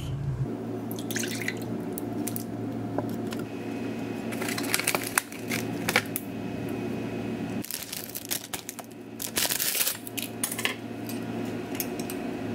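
Sandwich-making sounds at a kitchen counter: a knife clicking and clinking against a glass jar of pickled jalapeño slices and a plate, with a short rustle about three-quarters of the way through. A steady low electrical hum runs underneath from about half a second in.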